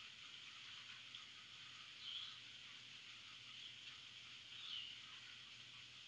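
Faint steady rain with a bird giving a few short chirps, two of them clearer than the rest.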